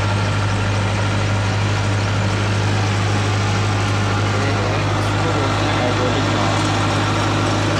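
Hydraulic excavator's diesel engine idling steadily, heard from the operator's cab just after starting.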